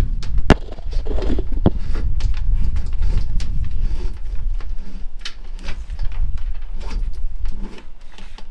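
Antenna cable scraping and rustling against the inside of a fibreglass boat console as it is pulled through by hand, with irregular light clicks and knocks.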